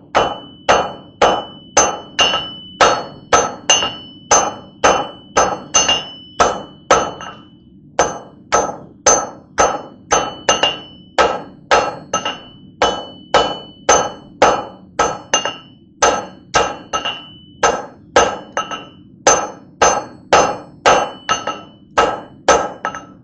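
Blacksmith's hand hammer striking hot steel on an anvil, forging the point of a welded wire blade, in a steady rhythm of about two to three blows a second with a ringing anvil tone. The rhythm breaks briefly about seven seconds in. Some blows land on the bare anvil face, where the smith lets the hammer rebound to rest his arm.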